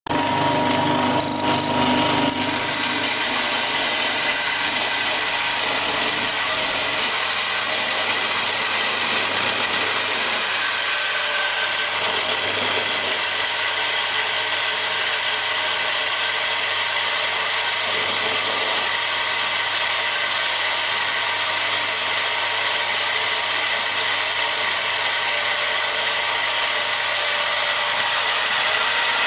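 Small stainless steel grinding machine running steadily with a continuous mechanical whir and grinding noise.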